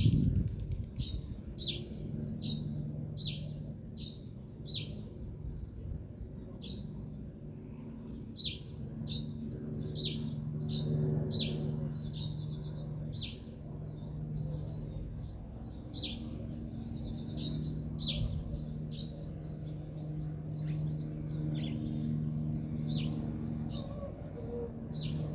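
Songbirds chirping: one bird repeats a short, falling chirp about once or twice a second, and a buzzier, trilling call comes twice around the middle. A low, steady hum runs underneath.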